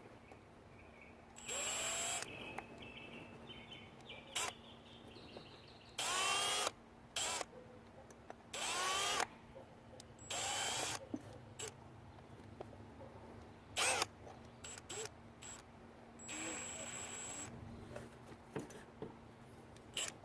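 Power drill driving in screws in about five short runs, each under a second or so, its motor pitch rising as it spins up, with small clicks and taps between the runs.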